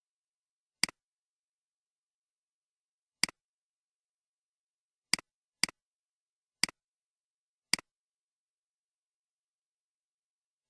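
Computer mouse clicking, six single clicks at uneven intervals, each a sharp press followed at once by a fainter release tick, with dead silence between.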